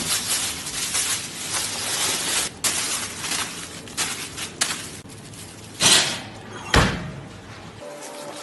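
Aluminium foil being crinkled and smoothed by hand, a dense crackling rustle, then two louder sharp crackles about six and seven seconds in, the second with a low thump, as the foil is pressed down over a pot.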